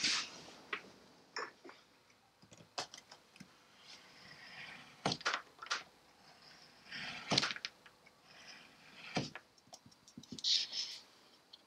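Scattered small clicks and knocks with a few short scrapes from hand work with printmaking tools, including a gouge cutting into lino.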